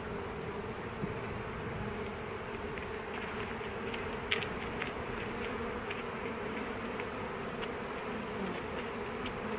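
Honey bees from a newly hived swarm buzzing around the open hive in a steady hum, with a few light clicks and taps as the wooden frames are handled.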